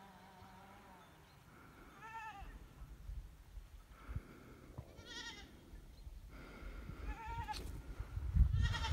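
Goats bleating out of sight: four separate quavering bleats, a few seconds apart. A low rumbling noise builds up near the end.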